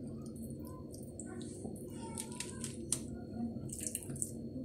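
Raw, oil-marinated bonito fillet being laid on a parchment-lined baking tray: soft wet squishes and paper rustles, clustered about two seconds in and again near the end, over a steady low background hum.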